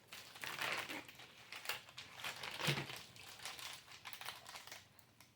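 Plastic snack wrapper crinkling and rustling in irregular bursts as it is handled and opened, fading out near the end.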